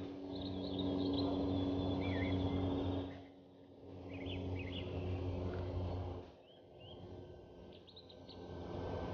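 Small birds singing and chirping, many short rising and falling notes. Under them runs a steady low hum with a rushing noise, which stops about three seconds in, comes back, and stops again about six seconds in.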